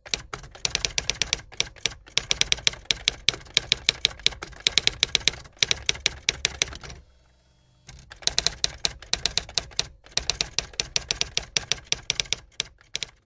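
Typewriter sound effect: rapid runs of clacking key strikes, with a pause of about a second partway through.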